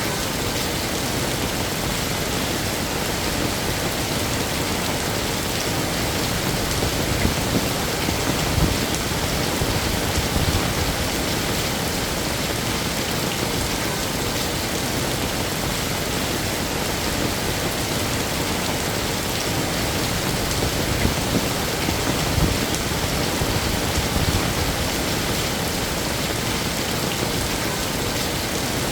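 Heavy rain falling steadily, an even dense hiss of drops. Twice, about a quarter of the way in and again about two-thirds of the way through, a low rumbling swells for a few seconds under the rain.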